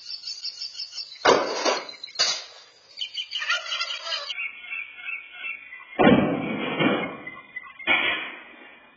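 A cat leaps from a porch pillar and grabs the rain gutter on the house, setting off loud banging clatters of the gutter. Two come about a second apart, and two more follow about five seconds later.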